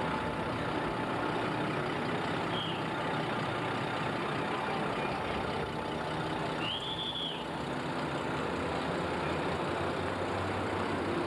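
Diesel engine of a red-and-cream municipal bus running as the bus moves in close, with a steady rumble and a brief high squeal about seven seconds in.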